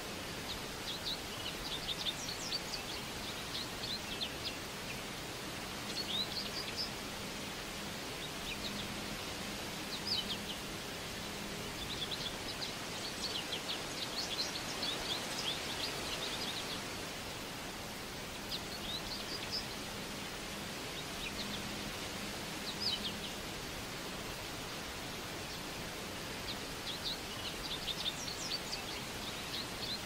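Forest ambience: songbirds calling in clusters of quick, high chirps every few seconds over a steady background hiss.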